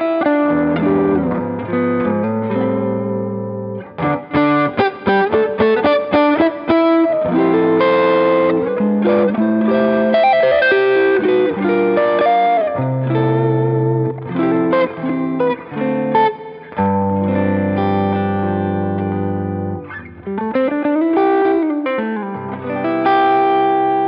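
PRS Singlecut Artist Package electric guitar with humbucking pickups, played through an amp: a lead line with fast short picked notes, sustained ringing notes and string bends that slide up and back down near the end.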